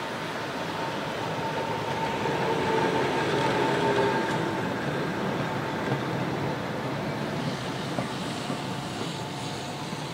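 Vintage two-car tram, a motor car pulling a trailer, rolling past on its rails: a steady running noise with a faint whine, loudest about four seconds in and then fading as it moves away, with a couple of sharp clicks from the wheels.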